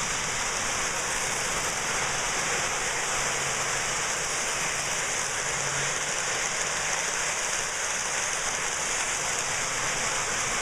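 Lionel electric toy train running steadily around its track loop, a continuous rolling whir of wheels on rail with no starts or stops.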